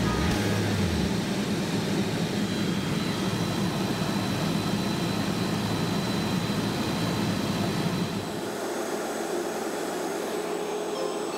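Turbine helicopter in cruise flight, heard from inside the cabin: a steady rush of engine and rotor noise with a thin high turbine whine. About eight seconds in, the low rumble drops away and the sound gets a little quieter.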